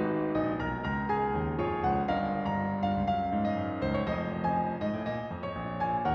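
Solo piano playing a gentle pop-song arrangement, with a steady flow of melody notes over sustained chords.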